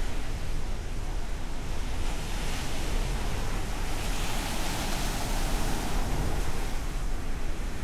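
Ocean surf on a beach: a steady wash of waves over a low rumble, with a wave breaking and hissing up louder from about a third of the way in to past the middle.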